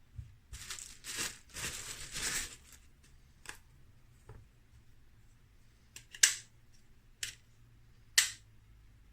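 Packaging rustling and tearing for about two seconds, followed by a handful of sharp plastic-sounding clicks, the loudest two about six and eight seconds in.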